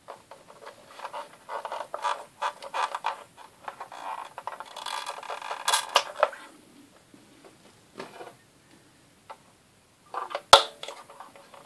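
Clicking and scraping of hand tools working a capacitor loose from a circuit board, busiest in the first six seconds, then a single sharp click about ten and a half seconds in, the loudest sound.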